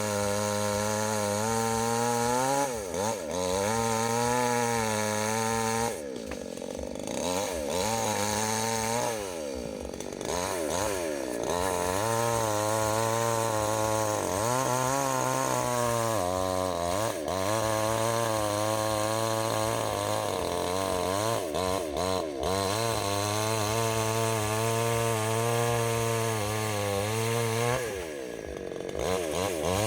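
Chainsaw running at high revs as it cuts through wood. Its pitch sags and climbs back about five times, with the longest dips about six seconds in and near the end.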